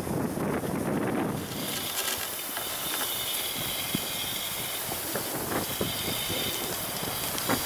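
Wind buffeting the microphone for about the first second and a half, then a steady hiss of skis gliding along a groomed snow track, with a few small clicks.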